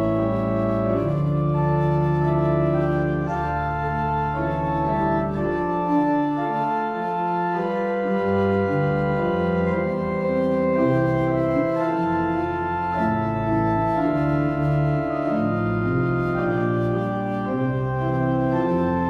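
Organ music: slow, sustained chords that change every second or so over low held bass notes.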